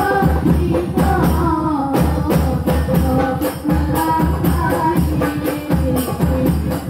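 Hadroh ensemble of women singing Islamic devotional songs together into microphones over rebana frame drums, which beat a steady, driving rhythm with jingling accents.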